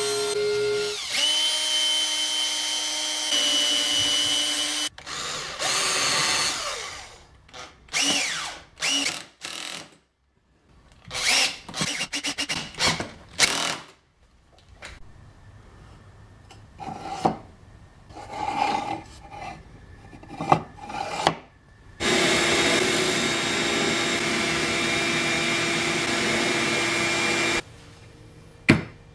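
Woodworking power tool motors running steadily in several short stretches, cutting wood, with the clatter of wood pieces being handled in between.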